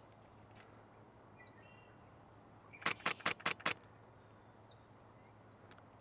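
A camera shutter firing a rapid burst of about six or seven clicks in under a second, about three seconds in. Faint short bird chirps sound around it.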